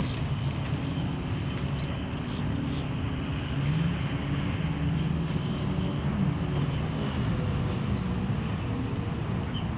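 Volvo Penta 5.7 GL V8 inboard boat engine running with a low, steady hum over a steady hiss. Its speed wavers slightly up and down about midway through.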